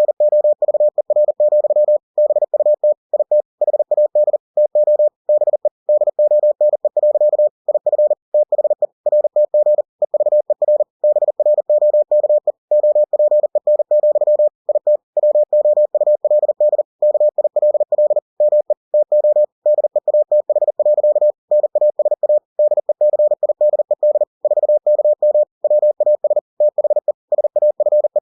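Computer-generated Morse code (CW): a single steady tone keyed on and off in fast dots and dashes, with brief pauses between words, sending plain text at 40 words per minute.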